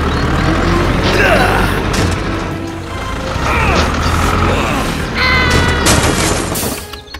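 Low tractor-engine rumble under background music, with a crash about six seconds in.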